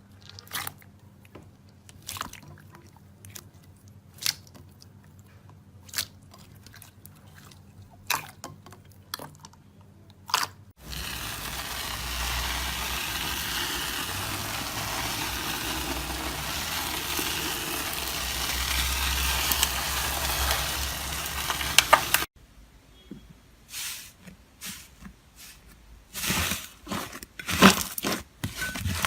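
Slime being pressed and handled, giving scattered crackling pops and squishes. About ten seconds in, a dense, continuous crackling takes over for roughly eleven seconds and cuts off abruptly, followed by quicker, louder pops and crunches.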